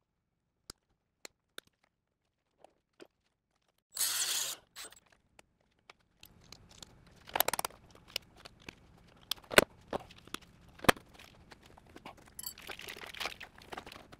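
Scattered sharp clicks and knocks of hand tools and metal and plastic parts being handled, with a short rustle about four seconds in and another near the end.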